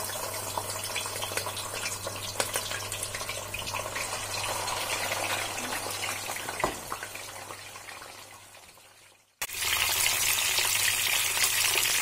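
Fish frying in hot oil: a steady sizzle with many small crackles and pops. It fades away about nine seconds in, then comes back suddenly and louder.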